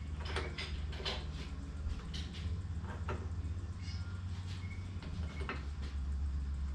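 Scattered light clicks and scrapes of metal as engine mount bolts are worked into place by hand, over a steady low hum.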